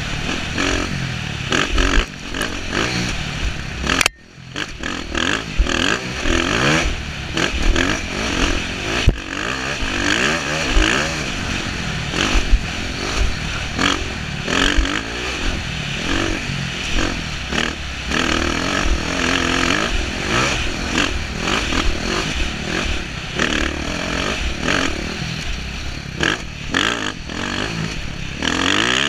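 Dirt bike engine revving up and falling back repeatedly as it is ridden hard over rough ground, with wind rushing over the helmet-mounted microphone. About four seconds in the sound drops away sharply for a moment, then the engine builds again.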